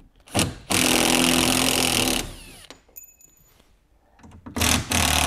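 Cordless drill-driver running in short runs to back screws out of a plywood shipping crate: a brief blip, then a steady run of about a second and a half that winds down, and another run near the end.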